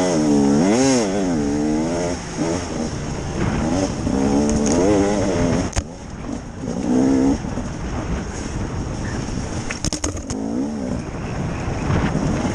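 Two-stroke KTM EXC 300 enduro motorcycle engine revving up and down under the rider's throttle, its pitch rising and falling in repeated surges. A few sharp knocks cut through, about six and ten seconds in.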